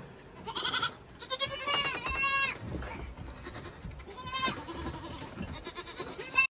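Young Saanen goat kids bleating: several short calls with wavering pitch, a cluster of them about one and a half to two and a half seconds in and another sharp one at the very end.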